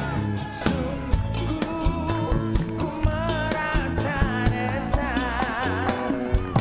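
Male voice singing a Malay-language song over a band backing track with a steady beat; near the middle the voice wavers on long held notes.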